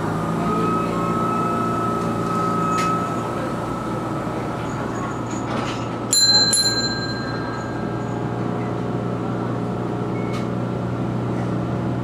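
Steady hum of a stationary Toyohashi Railway T1000 low-floor tram heard from inside the car, with a few faint clicks. About halfway through, a bell rings once, bright and short, and fades within a second.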